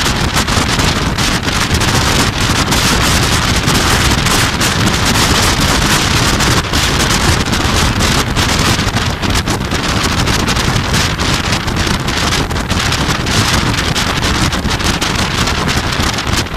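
Strong wind buffeting the microphone on a fast-moving motorboat, over the rush of its churning wake and engine.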